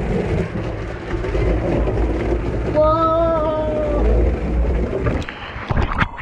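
Rider sliding fast down an enclosed waterslide tube: rushing water and the body rubbing along the tube with a low rumble, a brief held shout about three seconds in, and a burst of splashing near the end as the rider drops into the pool.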